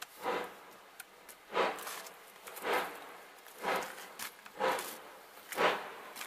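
Steam locomotive exhaust beats heard at a distance, six chuffs about a second apart, slowly quickening as the engine works hard to get its train moving.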